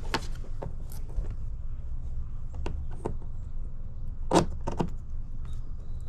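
Sharp plastic clicks and knocks, about six spread irregularly with the loudest a little past four seconds in, as a USB and cigarette-lighter charging-port panel is test-fitted into holes cut in an ATV's plastic body, over a steady low rumble.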